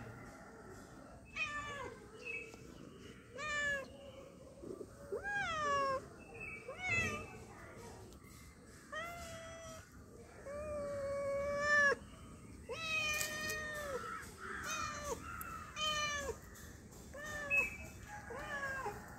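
Domestic cat meowing over and over, about a dozen separate calls, some short and some drawn out for more than a second.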